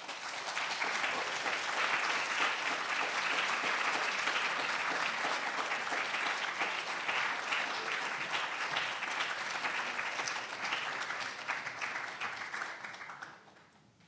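Audience applauding: a roomful of people clapping, starting at once, holding steady, then dying away near the end.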